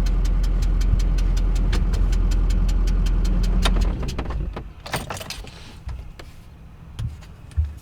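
Diesel pickup truck engine running with a rapid, regular ticking, then shutting off about four seconds in, followed by a few light clicks and rattles. The tick was traced to two bolts left untorqued after a head gasket repair.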